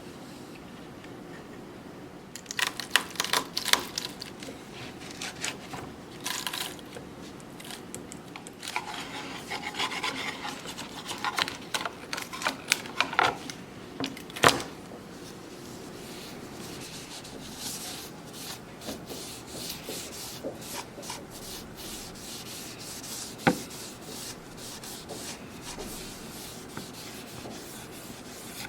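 Hand rubbing and scraping strokes on a wooden piece, with no power tool running. The strokes come in irregular bursts, busiest in the first half, with two sharp knocks, one about halfway through and one about 23 seconds in.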